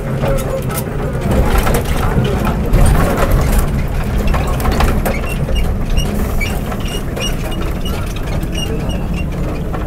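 MSRTC bus's diesel engine running at low speed, heard from inside the cabin through an open window, with the body and fittings rattling and clicking over a rough surface. A run of short high chirps comes through in the second half.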